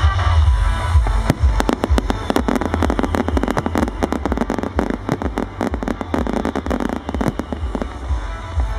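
Fireworks barrage: dozens of shells and mines going off in quick succession, a dense run of bangs and crackles from about a second in, with music playing underneath.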